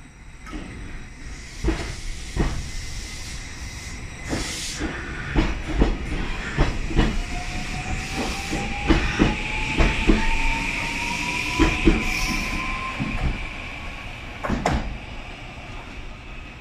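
JR Kyushu 821 series electric commuter train pulling away and passing close by, its wheels clacking repeatedly over the rail joints. A whine rises slowly in pitch from its traction motors as it accelerates, then fades as the train draws off.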